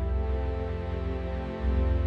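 Background music: sustained soft chords over a deep bass note, the chord changing about one and a half seconds in.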